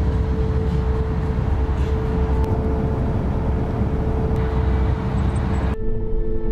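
Road noise inside a moving car on a motorway: a steady low rumble of tyres and engine, with a single held tone running over it. Near the end the road noise cuts off abruptly, leaving sustained music tones.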